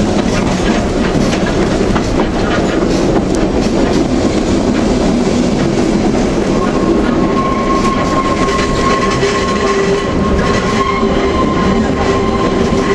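Manx Electric Railway tramcar running along the track, heard from inside the car: a loud, steady rolling noise of the wheels on the rails. About halfway through, a sustained high screeching sets in and holds: the wheel flanges rubbing against the rail on a tight bend.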